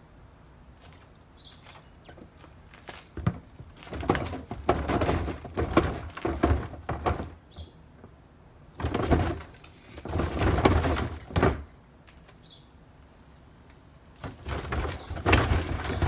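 Plastic garbage-cart lid rattling and scraping in three long bouts as it is yanked at, held shut by sticky aphid honeydew, with faint bird chirps in the quieter gaps.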